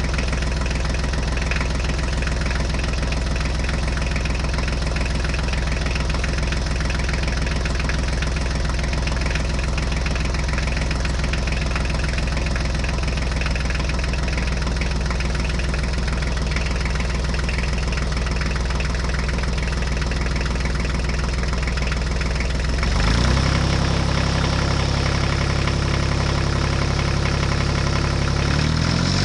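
Tractor engine idling steadily with a low, even beat. About 23 seconds in the note shifts higher and runs a little louder.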